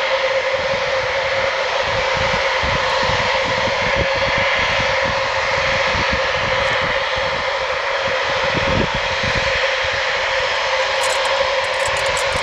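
Boeing 707's four Pratt & Whitney JT3D turbofans running at taxi power as the jet rolls along the taxiway. It is a steady, loud engine whine with a strong humming tone and higher tones above it, over an uneven low rumble.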